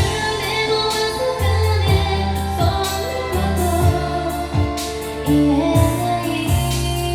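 A woman singing a slow ballad over a backing track with held bass notes.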